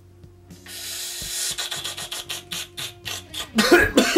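A person taking a long hissing drag on a joint, then a quick run of short sucking puffs, about four or five a second. Coughing starts near the end.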